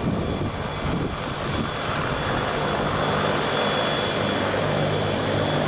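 Aircraft engines running steadily at an airfield: a low drone with thin high whines above it, getting slightly louder toward the end.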